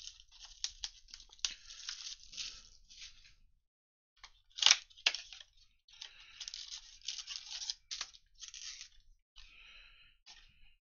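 Cellophane shrink-wrap torn and crinkled off a cardboard trading-card blaster box, then the box flap opened and the foil packs handled, in crackly patches. A single sharp snap about four and a half seconds in is the loudest sound.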